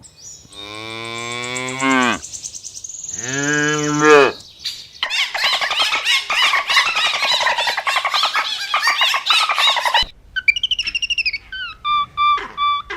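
Two long moos from a cow, the second shorter, followed by a dense chorus of small birds chirping for about five seconds. After a sudden cut, a series of clear, whistled bird calls.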